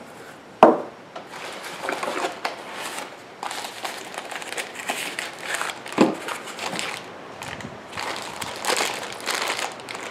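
Brown paper wrapping and a plastic bag crinkling and rustling as they are unwrapped by hand, with a sharp knock about half a second in and another near six seconds.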